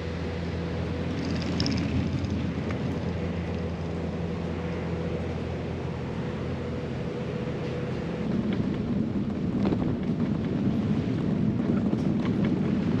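A steady low engine drone with a faint held tone above it. About eight seconds in, a louder rushing rumble of wind on the microphone and rolling noise from the moving bike takes over.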